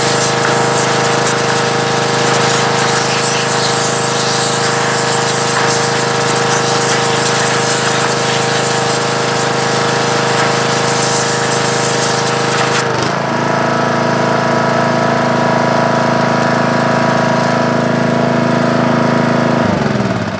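Small homemade pressure washer running with its water jet hissing. About 13 seconds in, the spray hiss drops and the pump's hum jumps up in pitch. Near the end the pitch slides down as the machine winds down.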